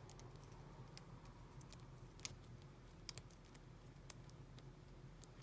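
Faint, irregular small metallic clicks and scrapes of a handmade steel lock pick working the pin stack of an American Lock 700 padlock, with one sharper click a little after two seconds in. The clicks are the pins moving and catching as the pick lifts them.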